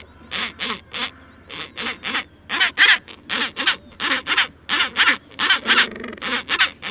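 Penguin calling: a long run of harsh, rapid braying notes, about four a second, in short bursts.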